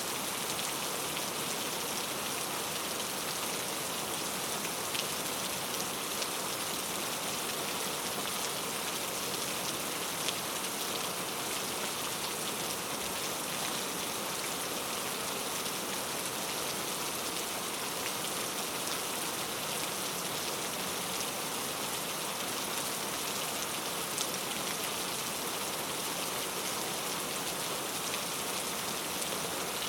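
Steady rain falling in a forest, a constant hiss with scattered drops tapping on surfaces.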